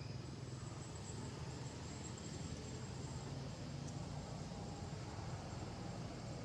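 Faint steady outdoor background noise: a low rumble and hiss, with a thin high whine that fades out about three seconds in.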